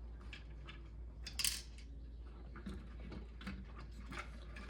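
Small metal screws and plastic parts clinking and clicking as they are handled and set down, a run of sharp clinks about a second and a half in being the loudest.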